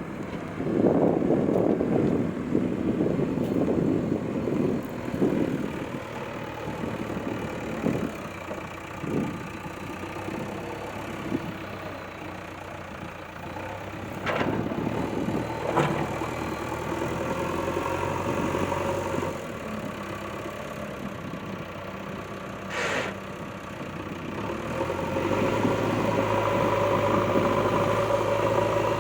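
Heavy diesel machine engine running under load, with a rattling, clattering stretch in the first few seconds and a few sharp knocks around the middle. Near the end it runs louder and steadier.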